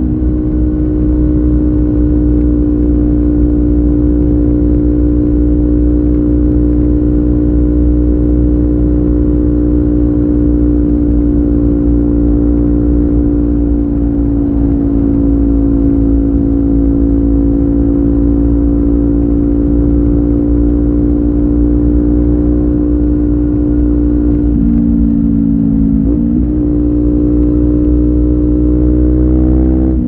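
Kawasaki Ninja 400's parallel-twin engine running through an Akrapovic carbon slip-on exhaust with its dB killer removed, holding a steady cruising pitch. Near the end the pitch dips briefly and then climbs again.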